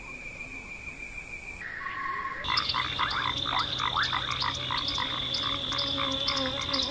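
A chorus of frogs calling, many short rapid croaks over a steady high-pitched drone, starting about two and a half seconds in. Before it there is a quieter steady outdoor hiss with a faint high tone.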